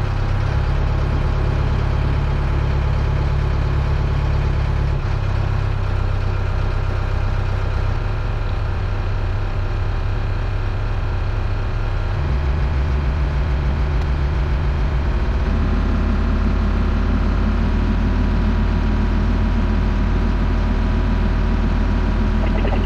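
Towboat's engine running steadily under load while towing a large cabin cruiser, its note shifting a few times as the throttle is adjusted, and running a little louder over the last several seconds.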